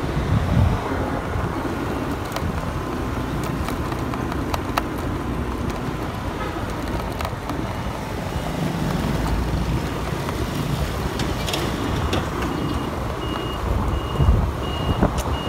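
Steady engine and road noise of a vehicle moving along a street, heard from on board, with passing traffic around it.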